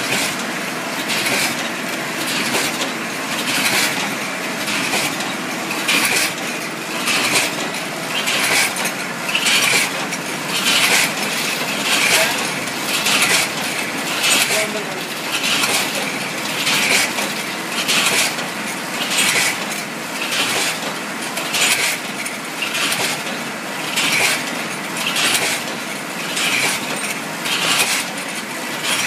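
Multihead weigher of a snack packing machine running, small biscuits clattering through its weigh hoppers in regular bursts a little over one a second, over a steady machine hum.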